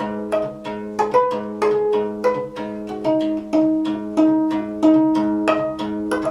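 Solo gayageum, the Korean plucked zither, played as a steady stream of plucked notes, about three a second, over a low string that keeps ringing underneath.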